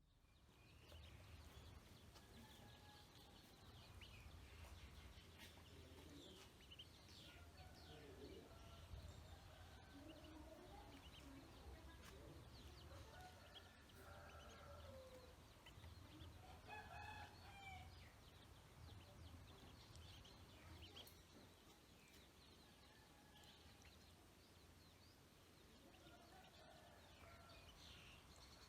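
Faint, scattered short calls of ducklings and other fowl, some rising and falling in pitch, over a low steady hum.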